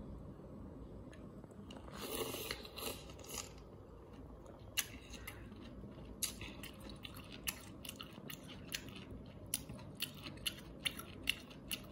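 A person eating ramen noodles close to the microphone: a noisy slurp about two seconds in, then chewing with many short, sharp mouth clicks that come more often toward the end.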